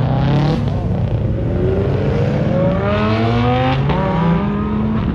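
A car accelerating hard as it pulls away: the engine's revs climb steadily, drop at a gear change about half a second in and again just before the end, then climb once more.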